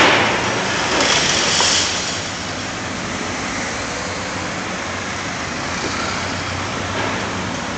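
Long-reach demolition excavator at work: its diesel engine running steadily under the hiss and rumble of concrete being crushed and rubble falling, with a car passing close by.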